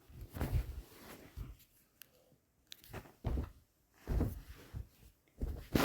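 A series of dull thumps from something being banged against a wall, about six irregular knocks, the loudest one right at the end. It is done to sound as if a door were being broken in.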